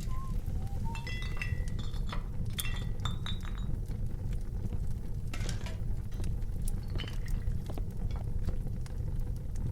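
Tavern ambience: glasses and crockery clinking and clattering, several ringing clinks in the first few seconds and scattered knocks after, over a steady low background din.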